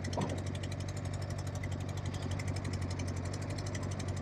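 Yamaha XJ600S inline-four motorcycle engine idling with a fast, even pulsing, not running on all cylinders because one spark plug has come out.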